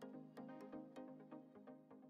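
Faint background music: soft pitched notes repeating in a steady rhythm.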